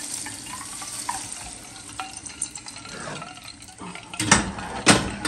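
Hot oil poured from a small steel pot onto cooked lentils and squash in a steel saucepan, sizzling as it hits the food. Two sharp metal knocks of the cookware come near the end.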